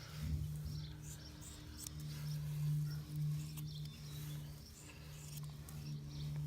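Electric hair clippers running with a steady buzz that swells and dips as they work through a cat's fur.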